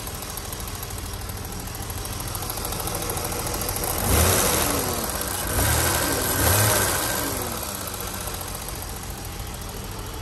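BMW M30B35 straight-six idling with a ticking valve lifter, blipped three times, about four, five and a half and six and a half seconds in, each rev rising briefly and dropping back to idle.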